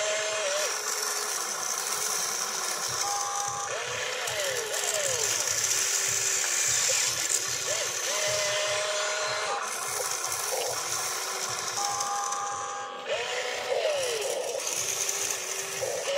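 Small electric motors of a toy RC excavator whining as the boom, arm and bucket move. Each whine rises in pitch, holds, then falls away as a motion starts and stops, repeating every few seconds.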